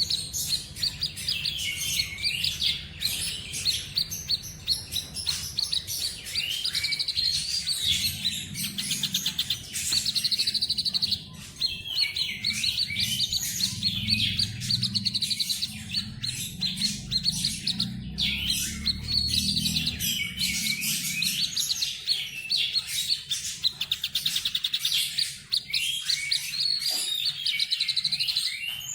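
A tepus dada putih babbler, the 'sniper' cage bird, singing in full voice: fast rattling trills and swooping whistled phrases, repeated every few seconds. Under it a low background rumble fades out about two-thirds of the way through.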